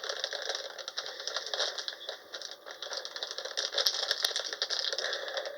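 A small container being worked at by hand to pop it open: a steady run of small clicks and rattles as it resists.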